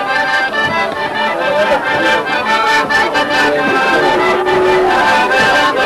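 Accordion playing a traditional folk dance tune, with held chords and melody over a steady beat of sharp strikes.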